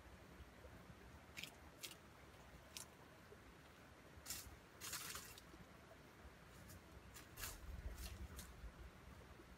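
Faint, scattered rustles and crackles of dry leaf litter, about nine brief ones with the longest about halfway through, as a red junglefowl rooster scratches and pecks while foraging.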